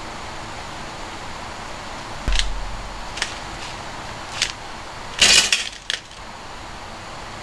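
A plastic packet of dry spaghetti being handled: a thump a little over two seconds in and a couple of light clicks, then a loud crinkle and rattle of the packet about five seconds in. A steady hiss runs underneath.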